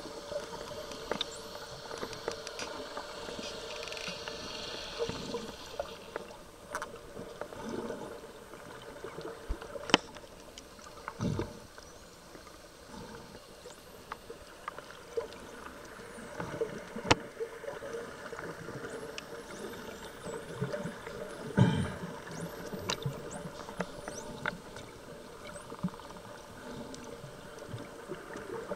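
Underwater sound of spinner dolphins: faint high whistles that rise and fall, most of them in the second half, with scattered sharp clicks. Underneath runs a steady hum and water noise.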